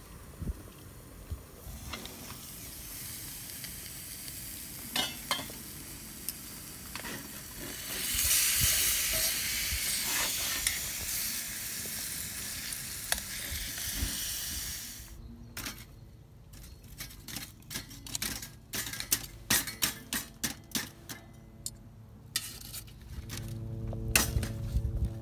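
Food sizzling in oil in a small iron skillet over a wood fire, getting louder about eight seconds in. About halfway through the sizzle stops and gives way to a run of sharp clicks and clinks, with music coming in near the end.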